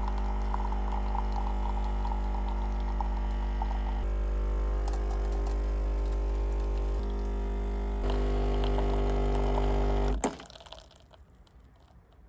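Coffee machine running and pouring into a cup, a steady pump hum whose pitch pattern shifts a few times, then it cuts off with a click about ten seconds in.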